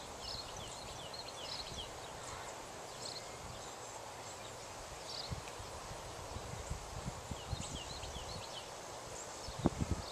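Pond-side ambience: small birds giving short high chirps in scattered little clusters, over low rumble and bumps, with a few louder thumps near the end.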